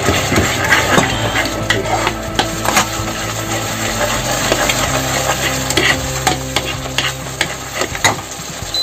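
Metal ladle stirring and scraping a thick, simmering sauce in a wok, with the sauce bubbling and sizzling and the ladle clicking against the pan now and then. A steady low hum runs underneath.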